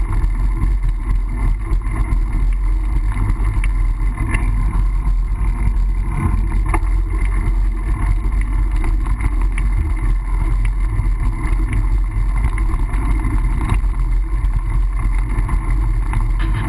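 Steady low rumble from riding a mountain bike along city streets with a GoPro: wind buffeting the camera's microphone together with road noise, with a few light rattles and clicks.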